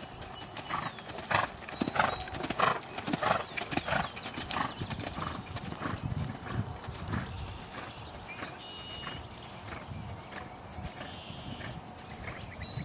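A horse cantering on grass, its hoofbeats and breath coming in a steady stride rhythm of about three beats every two seconds. The beats are loudest over the first five seconds, then grow fainter.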